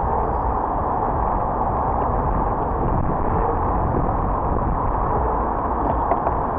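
Steady city street noise heard through a cyclist's camera microphone: passing cars and a low wind rumble on the microphone.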